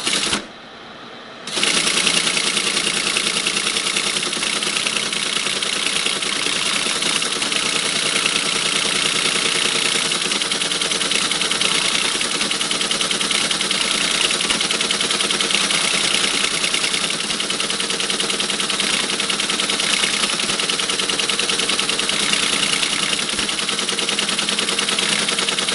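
Teletype ASR33 printing continuously at its steady ten characters a second: a dense, rapid mechanical clatter of the type mechanism, starting about a second and a half in after a single click.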